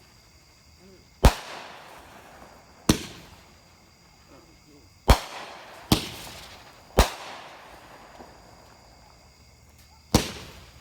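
A 200-gram six-shot consumer firework cake (Cutting Edge 'Political Chaos') firing: six sharp bangs at uneven gaps, each followed by a fading crackling hiss from the glitter effects.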